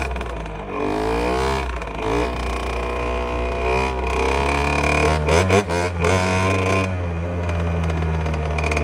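Suzuki RM60 two-stroke single-cylinder dirt bike engine running under way, its pitch rising and falling as it revs, with a change in engine note about five seconds in.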